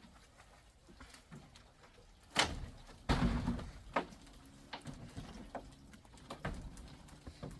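Scattered knocks and thuds, with two loud, heavy impacts about two and a half and three seconds in and lighter knocks after them.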